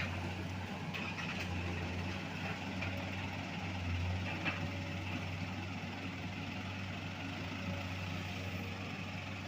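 Heavy diesel engine of a dump truck or excavator running steadily with a low, even hum.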